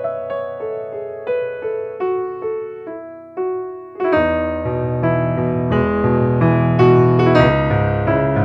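Background piano music: single notes played about twice a second, joined about four seconds in by fuller chords and a bass line, growing louder.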